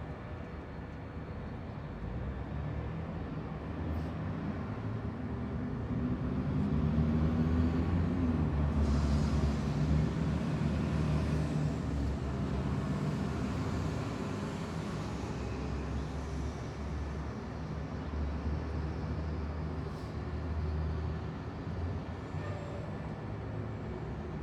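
Road ambience at a bus stop: a bus engine swells up close, its pitch rising briefly, then it runs on at a lower, steady level. About nine seconds in, a hiss of air brakes lasts a few seconds.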